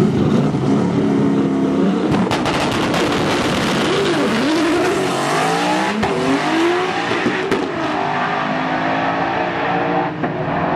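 Camaro drag car launching and making a full-throttle pass down the strip. Its engine note climbs and drops back at each upshift, several times over.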